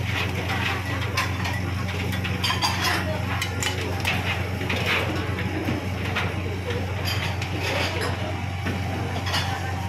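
Utensils, bottles and dishes clinking and knocking on a steel counter, many short irregular clicks over a steady low hum.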